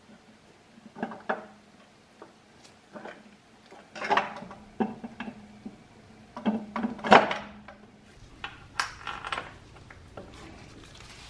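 Metal tools and engine fittings clinking and knocking at irregular moments as a wrench is worked around the throttle body and fuel rail, with the loudest clatters about four and seven seconds in. A faint steady hum runs underneath.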